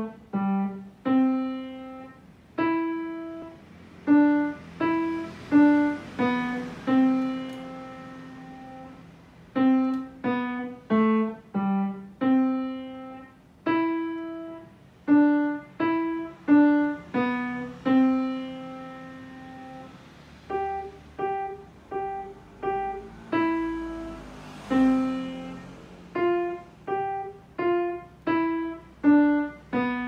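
Kawai grand piano playing a slow, simple melody, mostly one note at a time at about one to two notes a second, with some notes held longer and left to fade.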